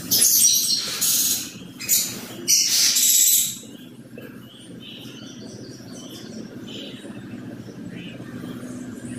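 Whiteboard marker scratching and squeaking across the board in four quick strokes over the first three and a half seconds, then much quieter.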